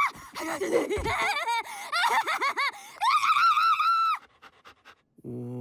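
A cartoon dog character's excited, high-pitched wordless cries that bounce up and down in pitch, ending in a long wavering yowl, then stopping about four seconds in.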